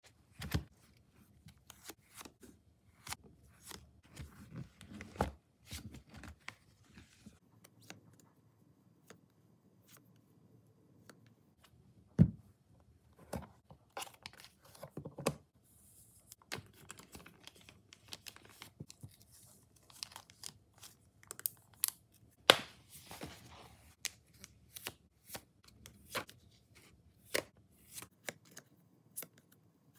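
Packing of photocards by hand: plastic sleeves and wrapping crinkling and tearing, with many scattered sharp clicks and taps as pieces are handled and set down; two taps, about 12 and 22 seconds in, stand out as the loudest.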